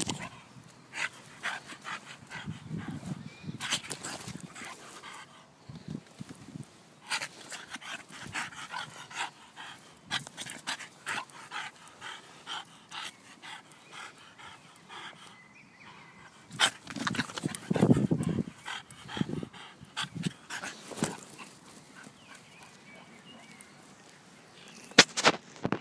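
Young English bulldog panting in quick, repeated breaths, with a few louder, lower sounds about two-thirds of the way through.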